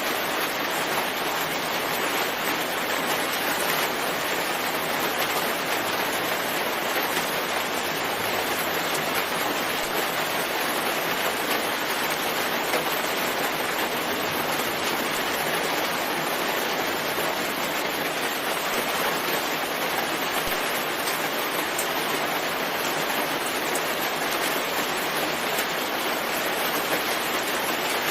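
Steady rain falling, a dense even hiss that does not change.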